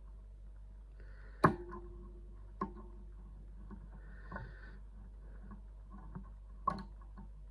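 Lever lock being picked: sharp metallic clicks from inside a Chubb 7-lever lock, four clear ones with fainter ticks and light scraping between them, the loudest about a second and a half in with a brief ring after it. The clicks are the levers binding and setting under the pick.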